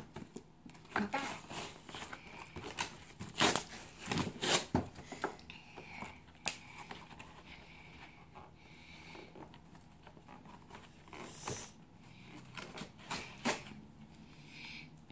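A cardboard doll box with a clear plastic window being handled and picked at, giving irregular crinkles, taps and crackles. The louder ones come in the first five seconds.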